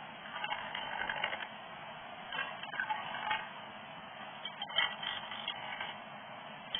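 Skew chisel cutting a pommel into a spinning Accoya (treated white pine) blank on a Nova 1624 wood lathe: irregular scraping cuts, each about a second long, over the steady noise of the running lathe.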